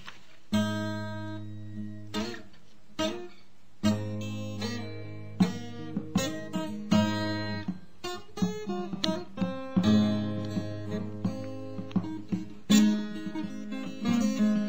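Background music: acoustic guitar strumming and plucking chords, each strum ringing out before the next.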